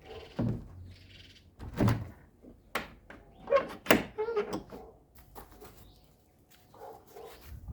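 Knocks and thuds from a chicken coop being handled and shut, about half a dozen spread over several seconds, the loudest two close together about four seconds in.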